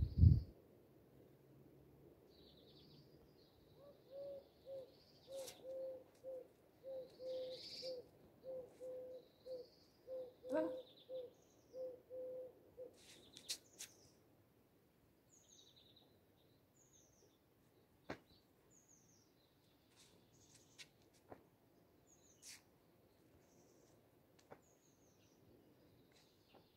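Birds calling: a low hooting note repeated about twice a second for several seconds, with higher chirps and twitters over it. A brief low thump at the very start is the loudest sound, and there are a few faint clicks later on.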